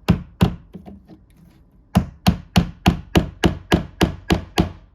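Hammer blows on a wooden couch frame: two strikes at the start and a few light taps, then a steady run of about ten blows, roughly three a second, which fits nails being driven in.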